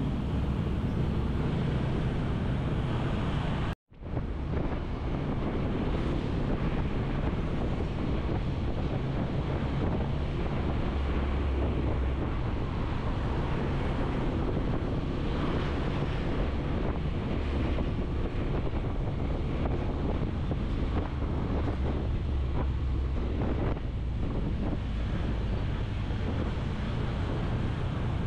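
Wind buffeting the microphone while travelling along a road, a steady noisy rush with a heavy low rumble. The sound cuts out completely for an instant about four seconds in.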